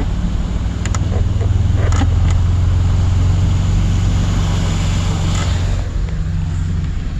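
Vehicle engine running with a steady low drone, with a brief rush of hiss about five and a half seconds in.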